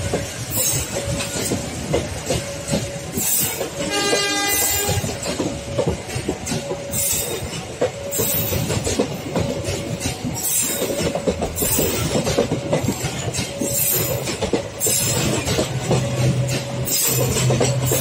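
Passenger coaches of a departing KAI local train rolling past, their wheels clacking over rail joints, while a level-crossing warning bell rings in short repeated tones. A train horn sounds once, briefly, about four seconds in. Near the end the low hum of the generator car's diesel engine grows louder as it draws level.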